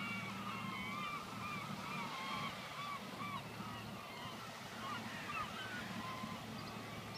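A flock of seagulls calling: many short, overlapping calls that thin out in the second half, over a low steady hum.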